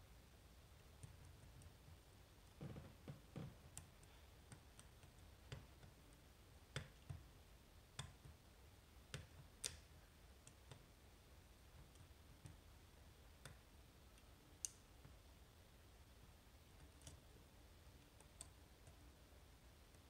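Quiet, sparse, irregular clicks of a lock pick and tension wrench working the pins inside an Assa Twin V-10 high-security cylinder lock, with a few soft knocks about three seconds in.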